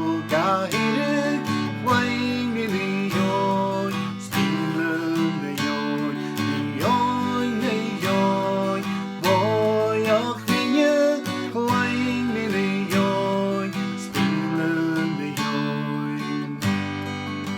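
Strummed acoustic guitar accompanying a Gaelic folk song about birdsong, with a sung melody line over the chords.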